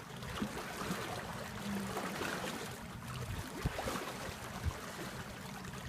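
Sea water lapping and splashing against a small boat's hull, with a few soft knocks and a faint low hum.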